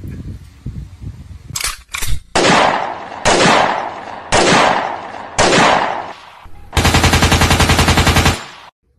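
Gunshot sound effects: four single loud shots about a second apart, then a rapid burst of machine-gun fire lasting about a second and a half. Two short sharp sounds come just before the first shot.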